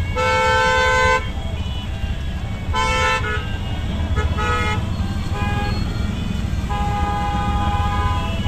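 Vehicle horns honking in traffic: a loud honk about a second long at the start, short toots about three and four and a half seconds in, and a longer, softer horn near the end, all over the steady low running of an auto-rickshaw's engine.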